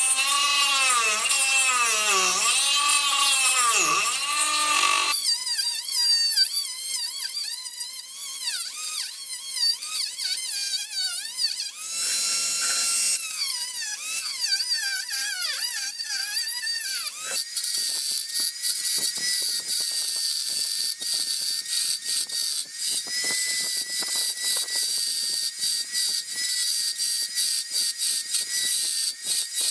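A small high-speed power tool, such as a rotary carving or grinding tool, working bamboo root. Its whine dips in pitch again and again as it bites in, then settles to a steadier high whine with rapid scratchy grinding from a little past halfway.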